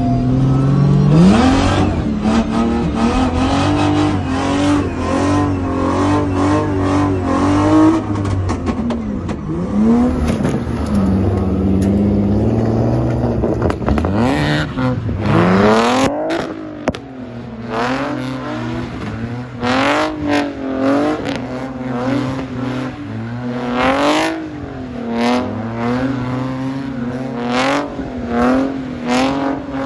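Drift car engine running hard, its pitch swinging up and down with the throttle; from about halfway it revs up and drops back repeatedly, roughly once every second or two.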